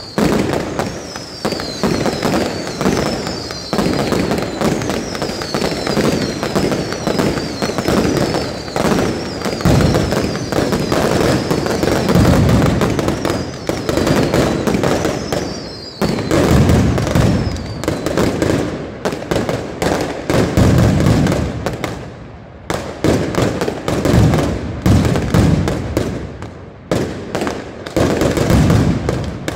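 Mascletà firecracker barrage: a rapid, continuous rattle of sharp bangs, with whistling fireworks warbling high above it for the first half or so. After the whistles stop, the bangs come in heavier, deeper clusters separated by brief lulls.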